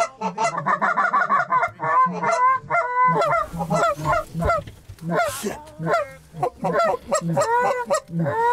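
A hunter's hand-held goose call blown in imitation of Canada geese. It opens with a fast, even run of short notes for about two seconds, then breaks into separate honks and clucks.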